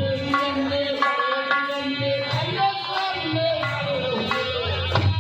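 Devotional bhajan music: tabla playing a steady rhythm under held melody notes, with a voice singing a gliding line.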